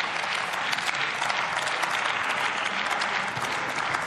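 Applause from members of parliament, many hands clapping in a steady, dense patter.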